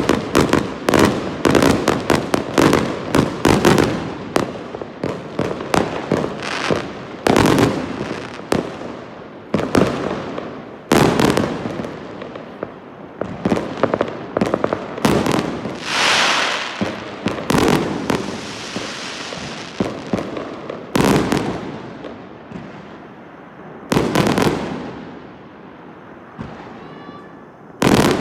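Fireworks going off, at first in rapid volleys of sharp bangs several a second, then thinning to scattered single blasts. A longer crackling, hissing burst comes about halfway through.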